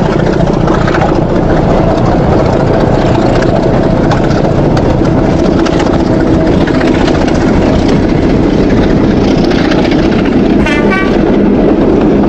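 Train running: a loud, steady rumble with faint clicking, and a brief higher-pitched tone near the end. It starts and cuts off abruptly, as a sound-effect clip.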